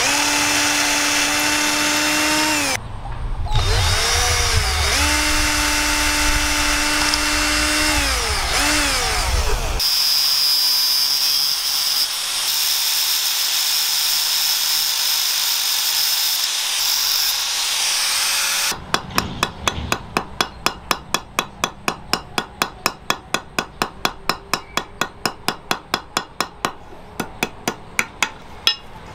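A cordless drill drills rivet holes through a knife's wooden handle in two runs, with a short break near 3 s; its whine rises as it spins up and falls as it stops. From about 10 s an angle grinder with a sanding disc trims copper-wire rivets, a steady high whine. From about 19 s a hammer peens the rivets on an anvil with rapid light strikes, about four a second.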